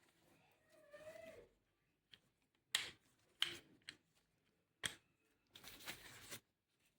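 Faint handling of the unboxed rotary hammer and its packaging: four short, sharp rustles or clicks, then a rustle lasting nearly a second near the end.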